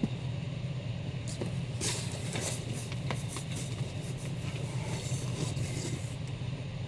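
Comic books being handled and lifted out of a cardboard shipping box: scattered light rustles, scrapes and small knocks of paper and cardboard over a steady low hum.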